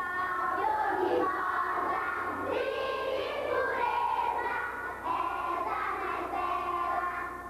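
Children singing together in chorus.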